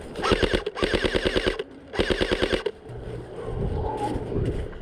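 Airsoft rifle firing on full auto in three rapid bursts close by, each a fast rattle of shots, the last ending a little under three seconds in.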